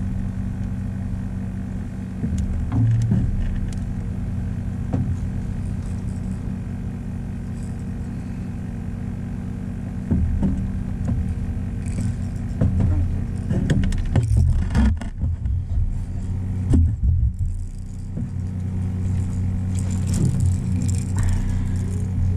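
Boat motor running at a steady low drone. A few knocks and clatters on the boat come a little past halfway.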